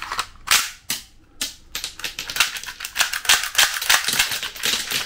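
Spring-loaded plastic toy Glock 21 pistol: a few sharp clicks as the magazine is pushed home, then from about two seconds in a fast run of clicks as the slide snaps back shot after shot and the plastic cartridges are ejected and clatter onto the floor.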